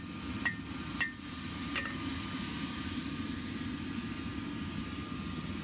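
Hand hammer striking hot steel on an anvil, four ringing blows in the first two seconds that slow and then stop, over a steady low rushing noise.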